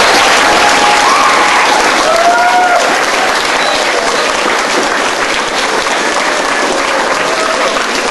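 Hall audience applauding, a steady clapping that eases slightly toward the end, with a few voices calling out over it about two seconds in.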